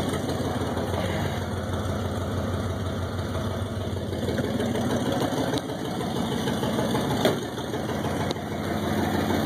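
1964 Ford Fairlane's V8 engine idling steadily with its air-conditioning compressor being switched off; a sharp click about seven seconds in, likely the compressor clutch letting go, after which the idle runs slightly quieter.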